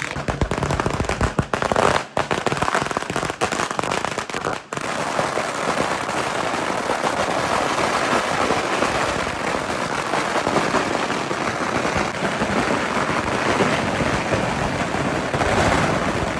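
A string of firecrackers going off: separate sharp bangs for the first few seconds, then from about five seconds in an unbroken, dense crackle of rapid pops.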